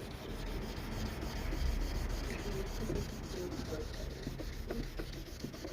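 Hand sanding of a plastic Mazda RX-7 FC tail light lens with folded 1000-grit sandpaper: a steady rubbing scrape of the paper worked back and forth over the lens, taking out the coarser grit marks.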